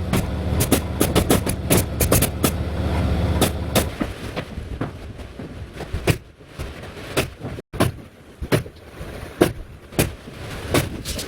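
Irregular sharp knocks and clicks, several a second at first and sparser later, over a steady low hum that fades about four seconds in; the sound drops out for an instant near the middle.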